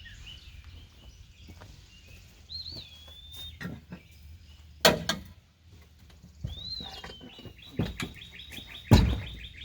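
Songbirds singing: two slurred rising-and-falling whistles and a rapid repeated chattering phrase near the end. Several sharp clunks break in, the loudest near the end.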